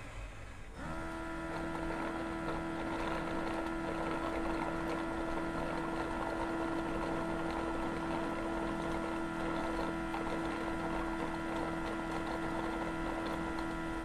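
Lydsto W2 robot vacuum docking station running a motor: about a second in it starts up with a steady hum and a low throb that pulses roughly once a second.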